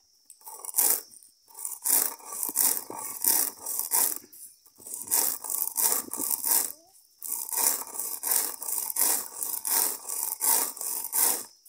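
A hand stone rubbed back and forth over dry pigeon peas on a flat grinding stone, a gritty scraping about two strokes a second in three runs with short pauses between. The peas are being cracked into halves with light pressure, not ground to flour.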